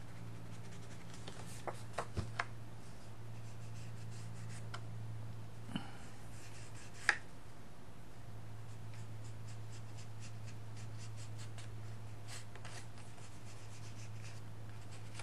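Fingertip rubbing gold embellishment mousse along the edge of a sheet of patterned paper: faint, scratchy rubbing with a few light taps and clicks, the sharpest about seven seconds in, over a steady low hum.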